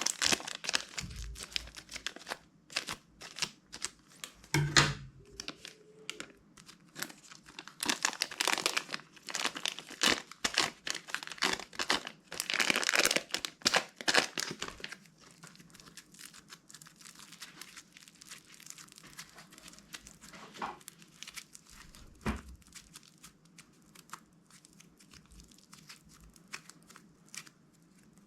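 Slime being squished, folded and stretched by hand, making dense crackling, popping clicks. The sound is busiest and loudest in the first half, then thins to softer, sparser clicks.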